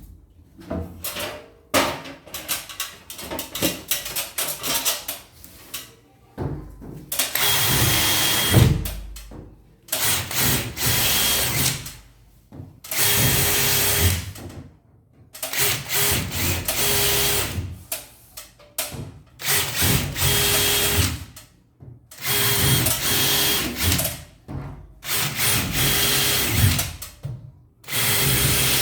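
Power drill-driver run in about nine short bursts of one to two seconds each, as when driving screws to fix a cabinet's back panel. Scattered knocks and clicks of handling come first.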